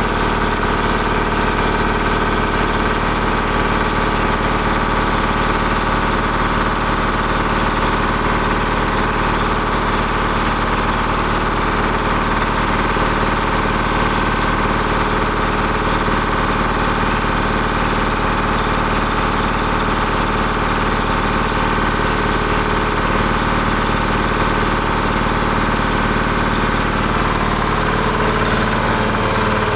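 Detroit Diesel 1-71 single-cylinder two-stroke diesel running steadily, warming up after a cold start without ether. Its note shifts slightly near the end.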